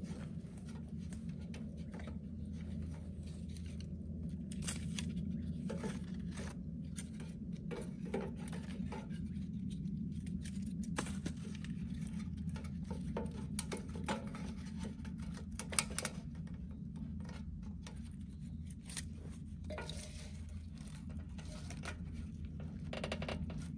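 Scattered small clicks, taps and rustles of things being handled, over a steady low hum; the loudest click comes about 16 seconds in.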